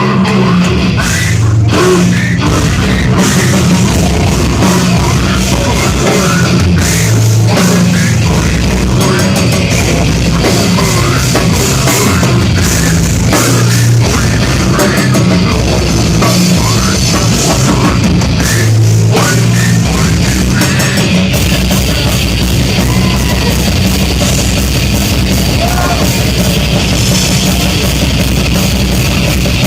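Slam death metal band playing live and very loud: heavily distorted guitars, bass and drums. About two-thirds of the way in, the riff changes and the low end becomes a continuous rumble.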